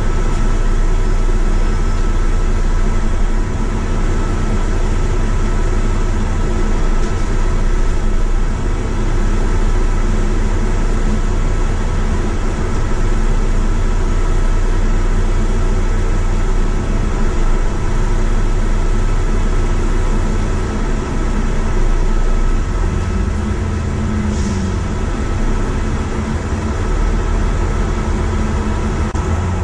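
Bus engine and road noise heard from inside a moving bus: a steady low rumble with a faint constant whine. Near the end the engine note falls and rises a few times.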